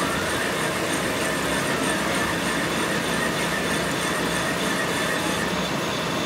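Metal lathe running, turning the steel spindle end of a truck's rear axle housing as it is machined for new threads. There is a steady grinding machine noise with a thin, high, steady whine over it.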